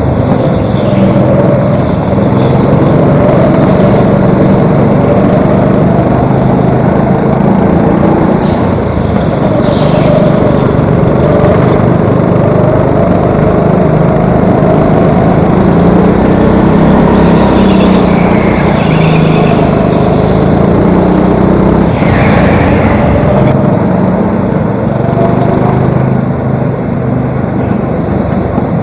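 Racing go-kart's engine heard on board at race pace, its revs rising and falling through the corners, with other karts running close by.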